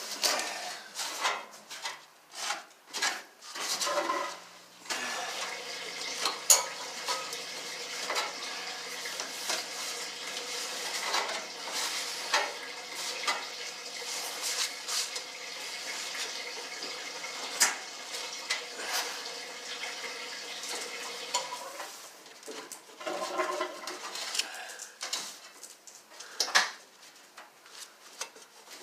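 Gloved hands scraping and pulling lint and dust out of a clothes dryer's cabinet, with rustling and sharp knocks against the sheet metal. From about five seconds in to about twenty-one seconds, a steady humming whir of a small motor runs underneath.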